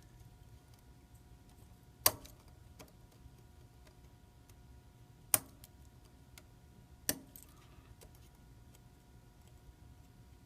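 Small sharp clicks and taps from handling the phone's parts and small repair tools: three louder clicks, about two, five and seven seconds in, among fainter ticks.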